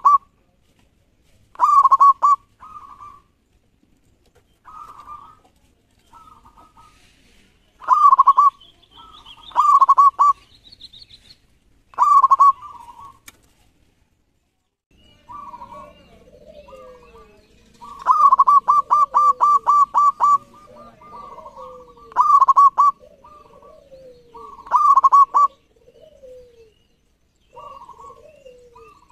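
Zebra dove (perkutut) cooing: phrases of short staccato coo notes repeated every few seconds, with one rapid run of about eight notes about two-thirds of the way through. Fainter, lower falling notes repeat from about halfway.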